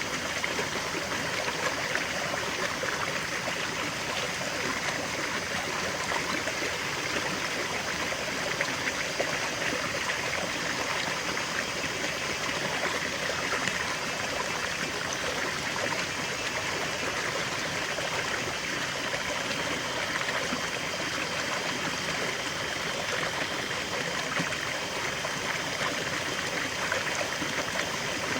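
River water flowing steadily, a continuous rushing and trickling over stones.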